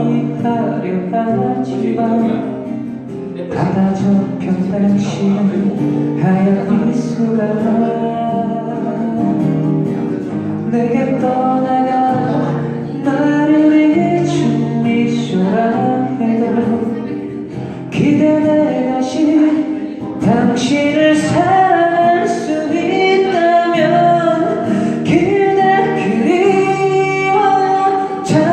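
A singer performing a Korean song live over strummed acoustic guitar, the voice holding and bending long sung notes above steady chords.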